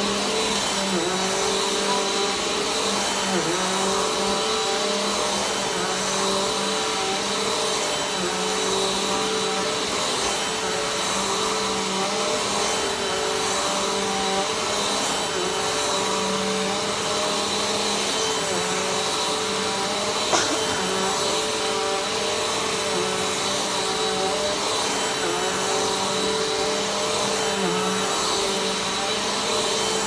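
Corded upright vacuum cleaner running steadily on carpet. Its motor hum dips briefly in pitch every few seconds as the head is pushed and pulled across the pile, with a single sharp click about two-thirds of the way through.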